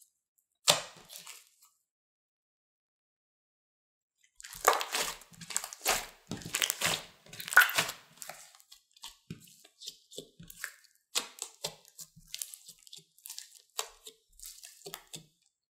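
Thick slime mixed with light clay being squished, folded and stretched by hand, giving sticky crackling and popping sounds. One squish about a second in, then after a pause a dense run of crackles that thins to scattered clicks toward the end.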